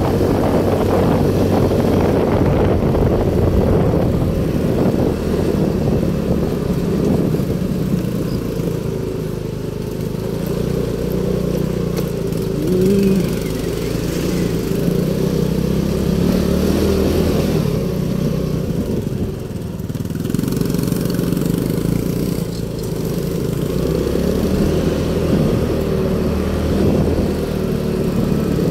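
Motorcycle engine running steadily while riding, heard from on the bike, with road and wind noise; the engine note drops briefly twice and comes back up as the speed changes.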